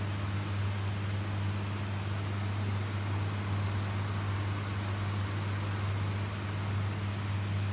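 Electric fan running: a steady low hum under an even hiss of moving air.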